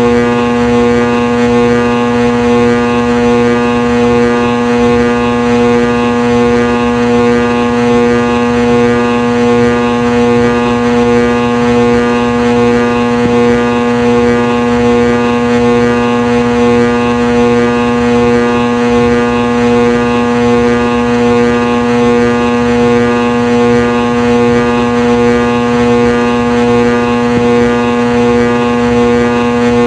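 Ceiling fan motor buzzing: a loud, steady electrical hum with a strong low tone and many overtones, unchanging throughout.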